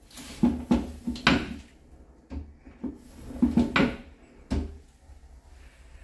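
Plastic clacking and rattling from a toilet-seat film dispenser's lever mechanism, in two runs of quick knocks, then one sharp knock. It is the lever being pushed twice to roll a fresh protective plastic film around the seat.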